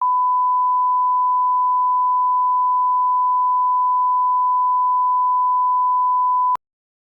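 A single steady high-pitched test tone, held unchanged for about six and a half seconds and then cut off suddenly with a click: a broadcast sign-off tone marking the end of transmission.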